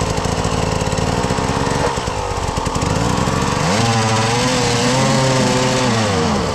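Enduro dirt bike engine running with rapid firing pulses, then revving up about three and a half seconds in, holding the higher revs for a couple of seconds and dropping back near the end.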